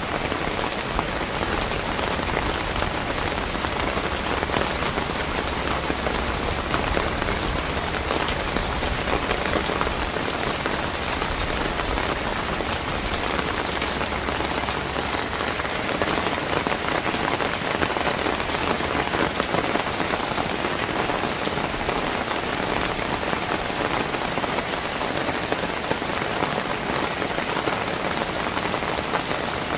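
Steady rain falling, an even continuous patter with no pauses or changes in strength.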